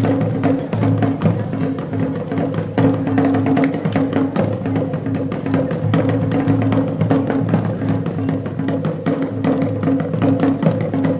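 Traditional Nigerien dance music: quick, sharp percussion strikes over a low pitched part that pulses in short, repeated notes.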